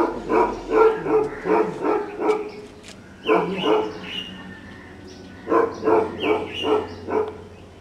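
Small puppy yelping in quick short cries, about four a second, in three runs: a long one at the start, a brief one a little past three seconds in, and another near the end. It cries while its wounds are being handled.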